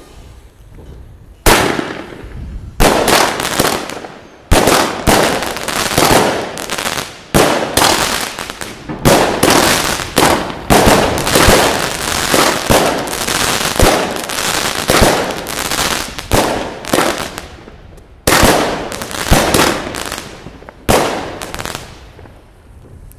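A 16-shot consumer firework cake (Pangu 'Gangster', 128 g) fires its shots one after another, about a second apart. Each shot is a sharp bang that trails off. The first comes about a second and a half in, after a short quiet spell while the fuse burns, and the last shortly before the end.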